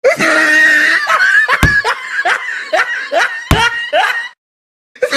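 Laughter in a run of short bursts, with two sharp knocks about one and a half and three and a half seconds in. It cuts off a little after four seconds and starts again just before the end.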